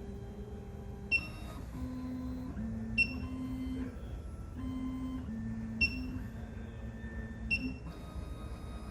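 SEC-E9 key cutting machine running its automatic calibration: its motors drive the carriage with a steady hum that steps between pitches as it moves, broken by four sharp clicks.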